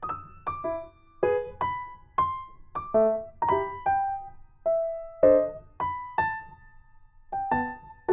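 Background music: a gentle electric piano playing separate notes, a few per second, with a short pause near the end.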